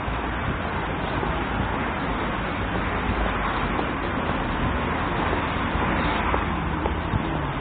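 Steady hiss and rumble of road traffic on a city street, an even wash of noise with no single vehicle standing out.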